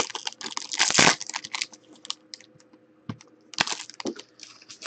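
Foil trading-card pack wrapper being torn open and crinkled by hand. There is a dense run of crackles for about the first second, then scattered crinkles with a short flurry near the end.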